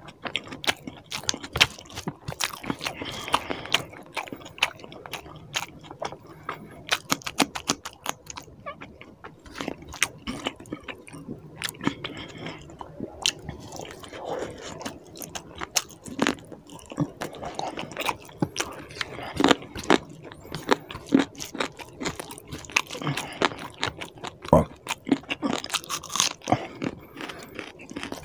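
Close-miked eating sounds: wet chewing and lip smacking of chicken curry and rice eaten by hand, with many short sharp clicks at an irregular pace, and fingers squishing curry into the rice on the plate.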